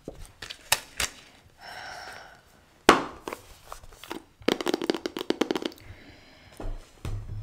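Hands handling a cardboard blush palette box: scattered clicks, one sharp snap about three seconds in, then a quick run of tapping clicks lasting about a second, and a couple of dull low bumps near the end.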